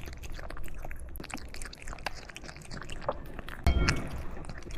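A cat chewing and crunching food: a steady run of small wet chews and crunches, with one louder bump about three-quarters of the way in.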